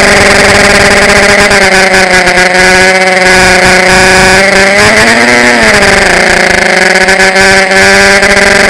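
Electric motors and propellers of a small drone, heard loud through its onboard camera's microphone: a steady, buzzy whine with several pitches at once. Around five seconds in, the pitch rises and then falls back as the motors speed up and settle.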